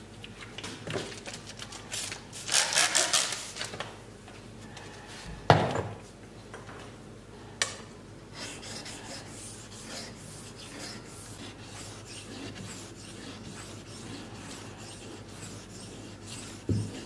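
Steel knife blade rubbed by hand back and forth on a flat abrasive stone: a quick run of scraping strokes about two seconds in, then softer, steady strokes. A sharp knock about five and a half seconds in is the loudest sound.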